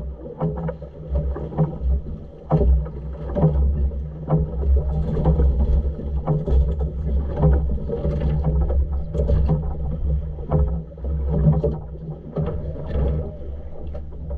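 A boat's engine running steadily with a low hum, with irregular splashing and knocks as a hooked yellowfin tuna thrashes against the hull.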